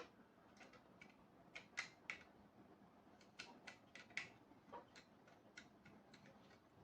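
Faint, irregular small clicks and ticks from wires being handled and fastened to a push button's terminals.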